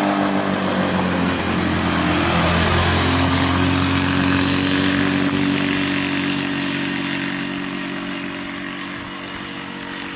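Can-Am ATV engine running under power, its pitch dropping about two seconds in and then holding steady. It is loudest around three seconds in and fades away over the second half.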